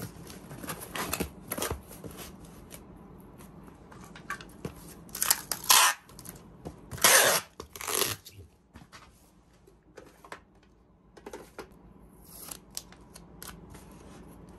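Cardboard box flaps folded down and packing tape pulled off a handheld tape dispenser across the box, in two loud tearing pulls, each about a second long, about five and seven seconds in. Light clicks and handling noises of cardboard and the dispenser come before and after.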